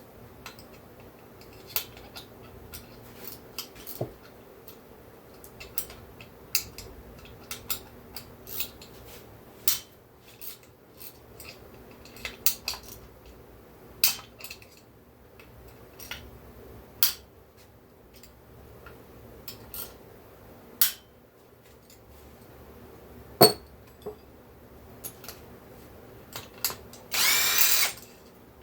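Metal tools and small parts clicking and tapping at irregular intervals as a chainsaw is taken apart, with one sharper knock about two-thirds of the way through. Near the end a power driver whirs for about a second.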